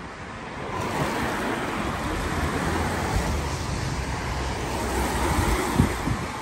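A car passing on a wet road: the hiss of its tyres on the wet tarmac swells about a second in, holds, and eases off near the end. Wind rumbles on the microphone underneath.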